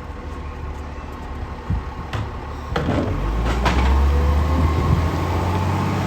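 Garbage truck running, its low engine rumble growing louder about three seconds in, with several sharp clunks and knocks in the middle.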